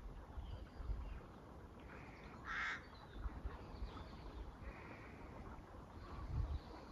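A flock of corvids calling as it flies overhead: scattered short caws, with one louder call about two and a half seconds in.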